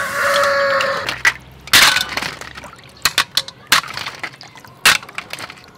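Hard sea snail shells clicking and knocking against metal bowls and a stainless colander as they are handled, in a string of sharp, irregular clinks. A rooster's crow trails off in the first second.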